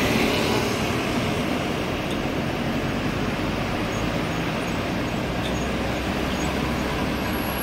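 Steady city road traffic heard through an open car window: the running engines and tyres of the car and the taxis driving alongside make an even rumble and hiss.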